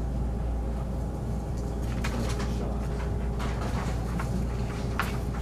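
Steady low room hum with scattered small clicks and taps, as of small parts and tools being handled on a workbench, starting about two seconds in.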